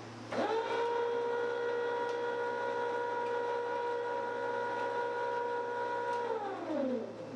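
Ss Brewtech grain mill's electric motor switched on at its power brick: it spins up quickly to a steady whine, runs for about six seconds, then winds down with the pitch falling. A steady low hum runs underneath.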